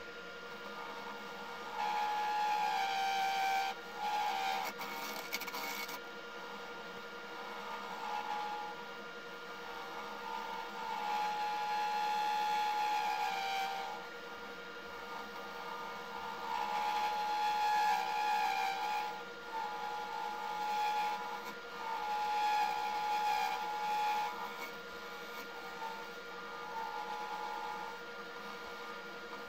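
Wood lathe running with a steady hum while a gouge cuts a spinning blank of dried cactus cast in Alumilite deep-pour resin. The cuts come in about seven passes, each lasting one to three seconds and giving a high whine as the resin peels off in ribbons.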